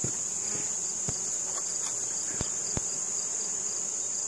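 Honey bees buzzing around an opened hive, over a steady high-pitched insect drone, with a few faint clicks.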